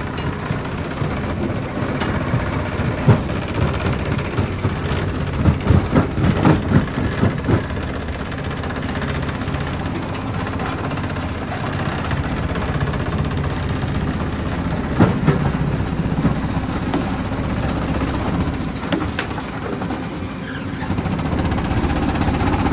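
Stone jaw crusher running with a steady mechanical drone, with rock cracking and knocking in the jaws: a cluster of knocks about six seconds in, and single sharp cracks later on.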